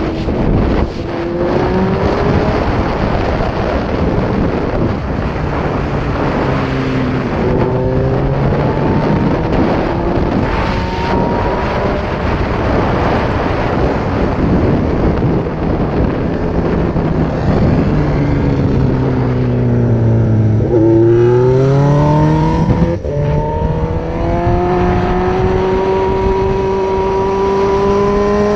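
Suzuki GSX-R1000 K6 inline-four engine pulling hard on track, its pitch climbing through the gears. About two-thirds of the way through it falls away as the bike slows, then climbs again with a brief break at a gearshift. Heavy wind rush on the helmet-mounted microphone runs under it throughout.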